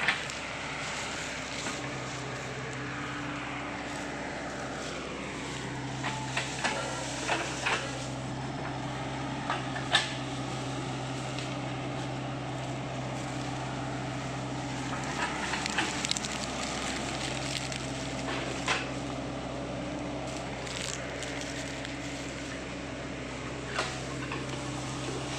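Diesel engine of a Sany SY55C mini excavator running at a steady hum, with a whine that falls in pitch over the first few seconds. Scattered sharp cracks and snaps of dry fronds and brush sound over it.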